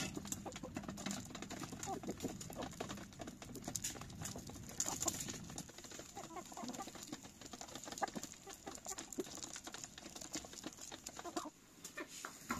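A flock of chickens clucking as they feed, with frequent sharp clicks of pecking on gravel and a metal tray.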